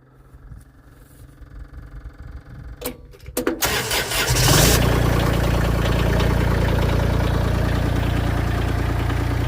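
Mini skid steer's diesel engine being started after a glow-plug preheat: the starter cranks it unevenly for about three and a half seconds, it catches, and from about four and a half seconds in it runs steadily.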